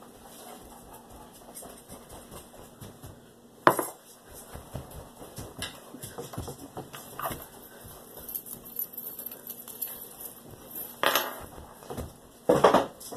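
Kitchenware clattering: a mug and spoon knocking and clinking, with one sharp knock a little over a third of the way in, as of a mug set down on a table, and more knocks and clatter near the end.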